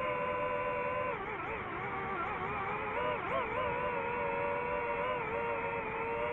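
DJI FPV drone's motors and propellers whining as several steady pitches. The pitches waver and dip together for a couple of seconds about a second in as the drone adjusts its flight, then settle back.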